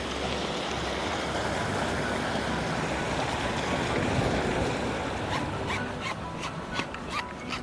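Sea surf washing against a rocky shore, a steady rush that swells about halfway through. Near the end a quick run of sharp clicks sounds over the surf.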